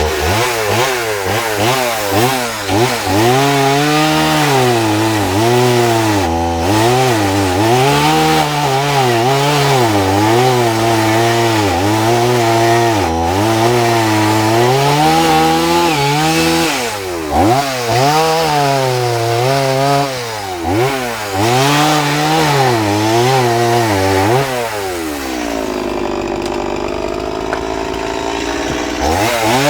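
Two-stroke chainsaw fitted with a small carving bar cutting into wood, its engine pitch rising and falling over and over as the saw is pushed into the cut and eased off. About 25 seconds in the engine drops to a lower, steadier speed for a few seconds, then revs back up near the end.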